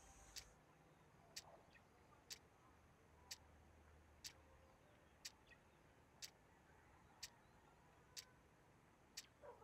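Clock ticking faintly and evenly, about once a second, with near silence between the ticks.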